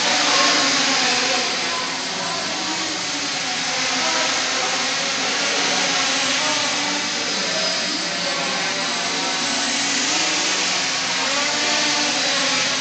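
Quadcopter's electric motors and propellers whirring steadily as it hovers and flies low, the pitch wavering up and down as the throttle is worked.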